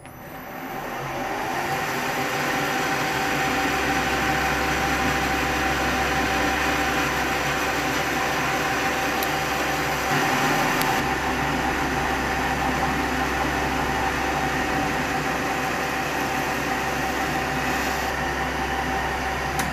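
Metal lathe starting up and running steadily with a constant whine, while a grooving tool is fed into a steel bar held between the chuck and a live centre.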